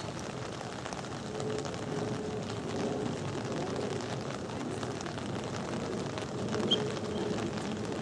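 Outdoor sports-field ambience: a steady noise bed with faint distant voices and a faint hum that comes and goes. A brief high chirp stands out about two-thirds of the way through.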